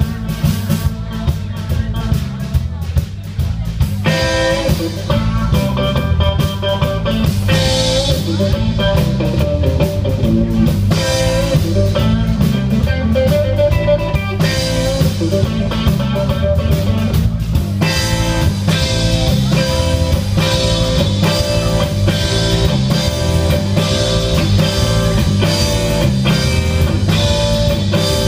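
Live rock trio playing an instrumental passage: electric guitar over bass guitar and drum kit, with the guitar growing fuller about four seconds in.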